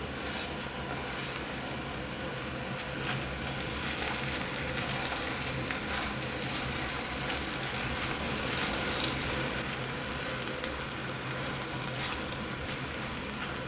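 Food sizzling in a pan over a steady low hum, with occasional light clicks of a utensil.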